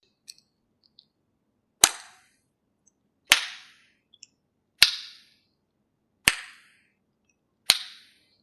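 Tongue clicks: the tongue pressed against the palate behind the front teeth and snapped down, five loud, sharp clicks at an even pace about a second and a half apart, each with a short fading tail. A few faint, small clicks come before the first loud one.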